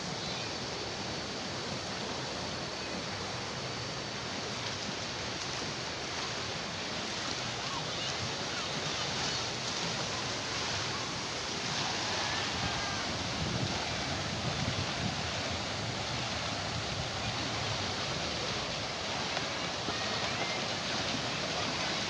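Steady rush of water flowing down rocky rapids into a shallow pool, a little louder in the second half.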